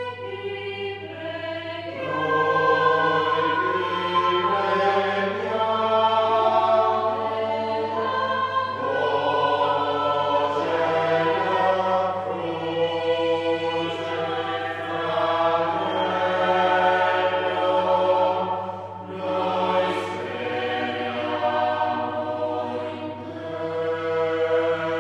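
Choir singing a slow sacred chant in sustained, overlapping notes over a steady low drone, with short breaks between phrases.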